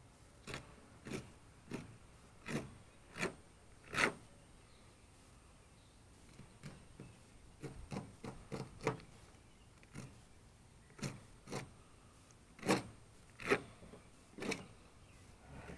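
Knife cutting along the hard, scaly skin of an alligator gar to separate it from the meat: short, sharp scraping strokes at an uneven pace, about sixteen in all, with a pause of several seconds after the first six.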